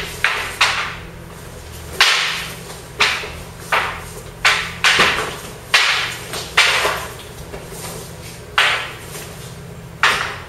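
Long wooden spear shafts clashing in sparring: about a dozen sharp clacks at irregular intervals, some in quick pairs, each ringing out in the hall.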